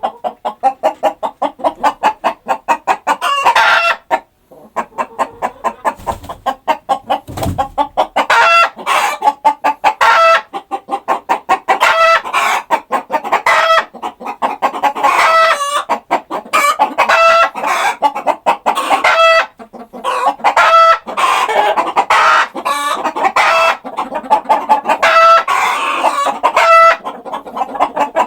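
Chickens clucking and calling continuously: a dense run of short clucks, broken by a stronger, longer call about every second.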